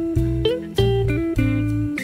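Background instrumental music led by plucked guitar notes, over a low bass line that changes note every half second or so.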